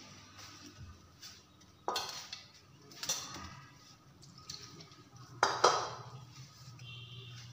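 Stainless steel mixing bowl clinking as milk is poured in from a steel bowl and the flour is mixed by hand: a few sharp metal knocks with a short ring, about two seconds in, again a second later, and a louder pair about halfway through.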